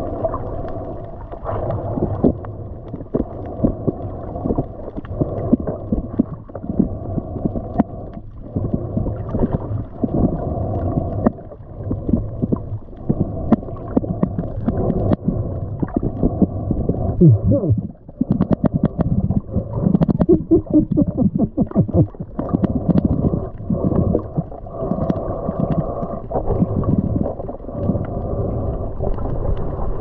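Underwater sound of a swarm of sergeant major damselfish striking at a piece of bait fish held in a hand: a rapid, irregular percussive clicking and knocking over a muffled wash of water noise.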